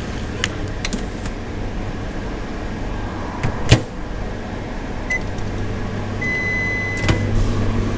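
Sanyo commercial microwave oven being loaded and started: light crinkling clicks of the pizza packaging, a sharp clack as the oven door shuts about halfway through, then a short beep and a longer beep from its button panel as the low running hum of the oven comes up.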